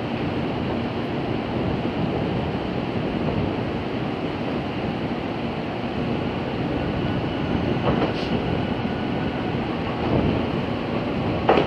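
JR Kyushu 813-series electric multiple unit running slowly into the platform, with a steady rumble of wheels on the track. There are two short high squeals, about eight seconds in and again near the end.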